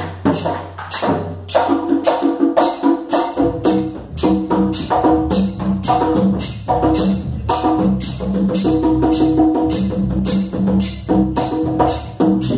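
Live band with congas and electric bass playing a percussion-led number, a sharp beat about three strokes a second; the low bass part fills out about three and a half seconds in.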